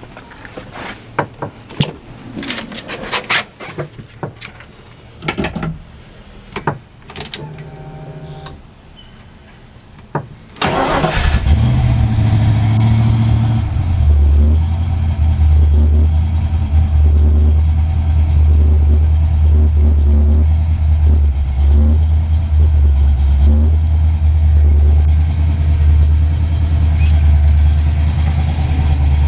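Scattered clicks and knocks, then about ten seconds in a 1988 Mustang GT's 5.0-litre (302) small-block Ford V8 cranks and starts. It settles into a steady, loud idle, its note dropping slightly a few seconds after starting.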